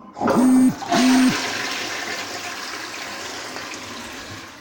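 Two short, loud, steady-pitched tones, then a rushing, water-like noise that fades slowly over about three seconds.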